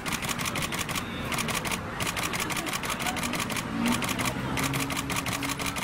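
Several DSLR camera shutters firing in rapid continuous bursts, about ten clicks a second, with short pauses between bursts.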